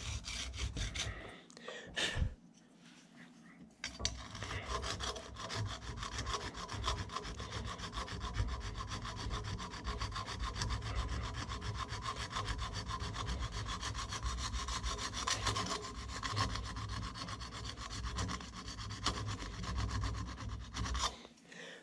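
Round chainsaw file rasping in quick, steady strokes over the solder patch on a brass carburetor float, taking off excess solder so that the repaired float is lighter. There is a short pause a couple of seconds in, then the filing runs on without a break.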